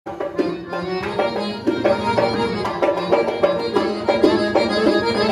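Accordion playing a lively folk tune over a steady hand-drum beat.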